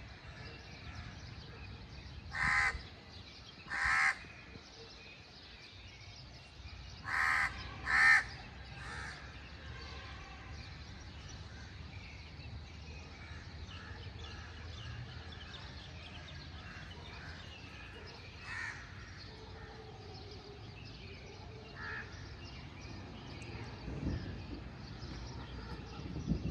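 Birds calling: four loud short calls in two pairs within the first eight seconds, then a few fainter ones further on, over a steady low background noise.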